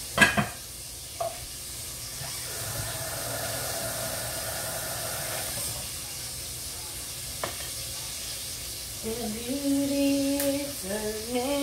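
A metal lid clanks sharply onto a stockpot, followed by a low steady sizzle from the cooking on the stove. Near the end a woman's voice hums a few held notes.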